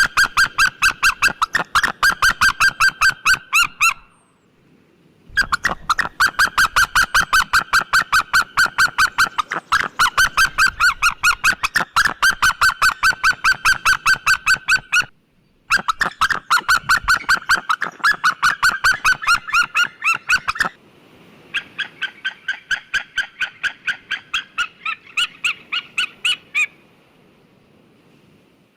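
White-tailed eagle calling: long runs of rapid, high yelping notes, about four or five a second, in four bouts broken by short pauses, the last bout quieter.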